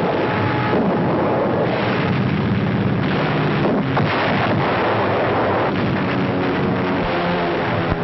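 Shipboard anti-aircraft gunfire and explosions in a dense, unbroken din.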